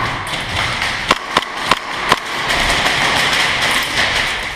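Airsoft gun shots in an indoor arena: four sharp snaps about a third of a second apart, then a louder, denser rush of noise for about a second and a half.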